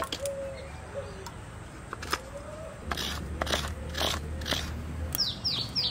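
Fresh coconut flesh being scraped from the halved shell, a handful of short rasping strokes. Birds call in the background, with a quick run of falling chirps near the end.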